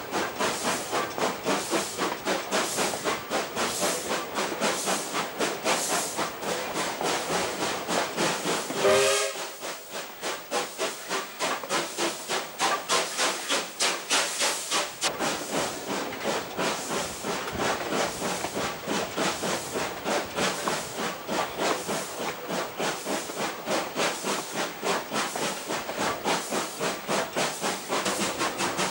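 Narrow-gauge steam tank locomotive 1047 running, its exhaust chuffing in an even, rapid rhythm with steam hiss. About nine seconds in, a short whistle blast sounds over it.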